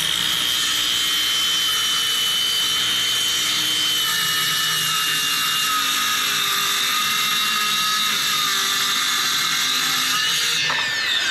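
Electric power saw ripping a length of hardwood along a marked line. The motor runs steadily under load with a high whine that sags slightly partway through, then the saw winds down with a falling pitch near the end.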